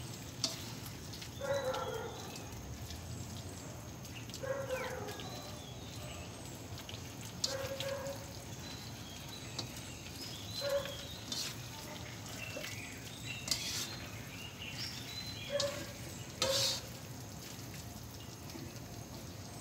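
Chopped pechay (bok choy) sautéing in a wok with a steady low sizzle, a spatula stirring and scraping the pan now and then. Short animal calls sound every few seconds.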